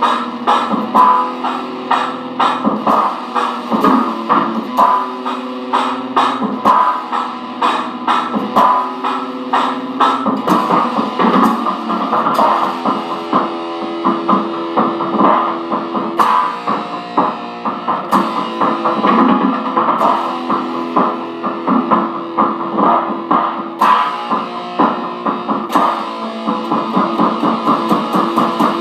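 Electric guitar, a gold-top Les Paul-style with humbucker pickups, played through a Fender amplifier: a run of picked single notes, some of them held for a second or more.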